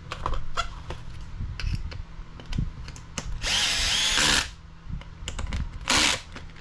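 Cordless electric screwdriver driving a screw into a plastic RC buggy chassis part, its torque clutch turned up a little. It runs for about a second near the middle and gives a short burst near the end, with small clicks of the bit and parts in between.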